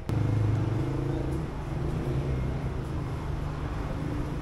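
A motor vehicle's engine running steadily, a low pitched hum that comes in abruptly and holds without revving.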